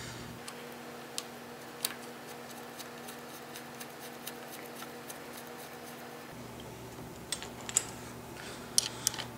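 Small metallic clicks and ticks as a brake-line banjo bolt with new crush washers is threaded by hand into a motorcycle's front brake master cylinder. The clicks are sparse at first and come closer together near the end.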